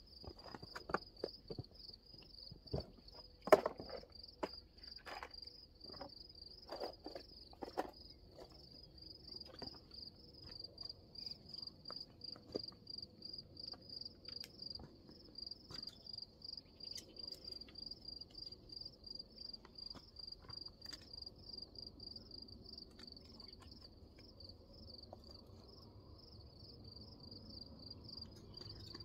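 Crickets chirping in a steady, high-pitched pulsing trill. Over the first several seconds come scattered knocks and crunches of footsteps and handling on rocky gravel, the loudest about three and a half seconds in.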